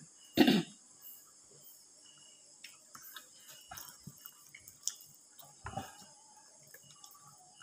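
A hand mixing curry and rice on a ceramic plate: soft scattered clicks and wet squishes of fingers against the plate, with chewing. A short loud noise about half a second in and a smaller one near six seconds.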